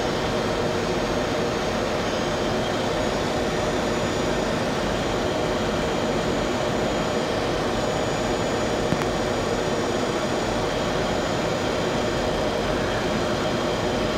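Steady flight-deck noise of an airliner on final approach with landing gear down and flaps at 30: airflow and engine hum with a few steady low tones running through it.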